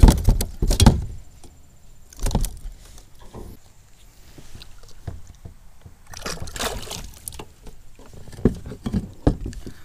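Handling noise in a plastic kayak: a string of sharp knocks and thumps against the hull and gear while a just-caught smallmouth bass is unhooked and held up, with a longer scuffling stretch about six seconds in and a few more knocks near the end.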